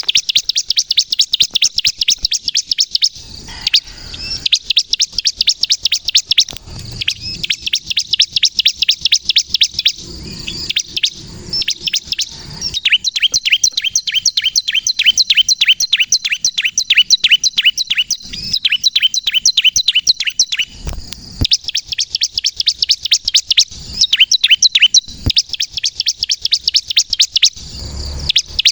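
Bar-winged prinia (ciblek kristal) singing continuously: long runs of rapid, sharp high chirps, several a second, broken by short pauses.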